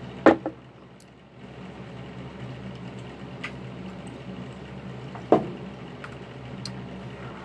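Two sharp knocks about five seconds apart, a drinking glass handled against a tabletop as it is taken up and set down, over a steady low hum.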